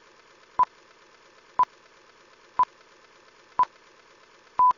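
Electronic beeps at a steady pitch, one short beep each second, with the last beep a little longer, like a countdown or time signal, over a faint hiss.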